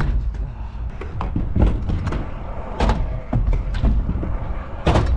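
Pro scooter rolling over concrete skatepark ramps, its wheels giving a steady low rumble, with several sharp clacks and thuds as the scooter knocks against the ramp and lands.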